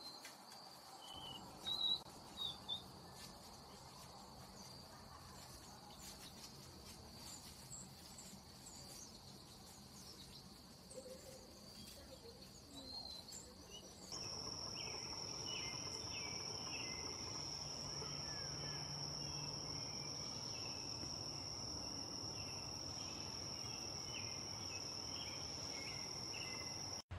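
Insects trill steadily at a high pitch throughout, with a few sharp chirps about two seconds in. About halfway through, a louder, slightly higher insect drone takes over, with scattered short twittering chirps beneath it.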